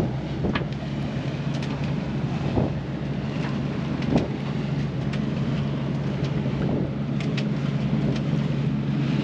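Sailing catamaran's diesel engine running with a steady drone while the hull motors through chop, with rushing water and wind and a few sharp slaps of water against the hull.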